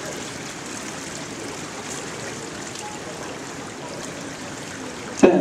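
Indoor swimming pool ambience: a steady wash of water running into the pool's overflow gutters. Near the end, one sudden loud thump that rings on briefly.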